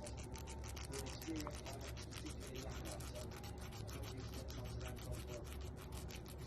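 A parrot crunching and gnawing food with its beak: rapid, irregular scratchy crackles, many to the second, that keep on without a break.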